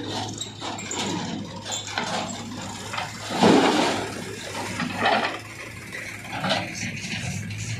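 JCB 3DX backhoe loader dumping a bucket of soil and stones into a metal tractor trolley, the load clattering down onto the trolley bed about three and a half seconds in, with a smaller pour near five seconds. A diesel engine runs steadily underneath.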